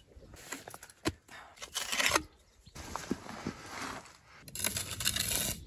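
Steel trowel scraping and pressing wet cement mortar against a hollow clay brick, in several short scraping strokes with a sharp tap about a second in.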